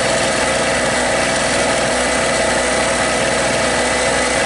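Small Harbor Freight Storm Cat two-stroke portable generator running steadily, an even engine buzz with no change in speed.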